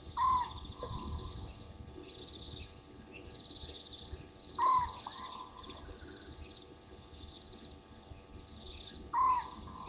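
Three loud short calls from a night animal, each rising then dropping with a brief tail, repeating about every four and a half seconds, over a steady high-pitched chorus of rapid chirps.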